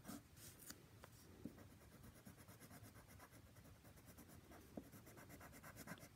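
Faint scratching of a graphite pencil on paper: quick, repeated short strokes shading in a small circle.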